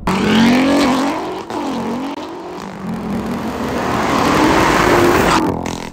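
Single-turbo BMW F80 M3's straight-six engine accelerating hard. The note climbs in pitch, drops once about one and a half seconds in, then climbs steadily again until it cuts off abruptly near the end.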